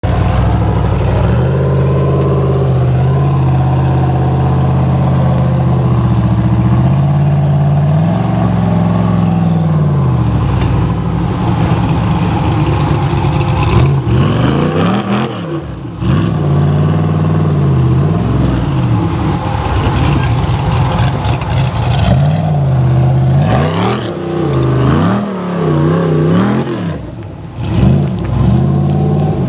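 Ultra4 rock-racing buggy's engine under heavy load on a steep rock slab climb. It is held at high revs, then revved up and down again and again, with a couple of brief drops in revs.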